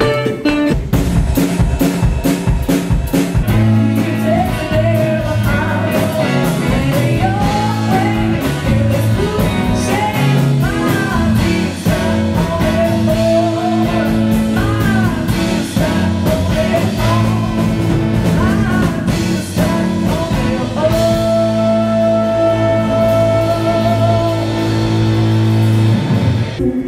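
Live blues band playing: a woman sings lead over drums and guitar, with a horn section on stage. Her voice comes in a few seconds in, and she holds one long note near the end.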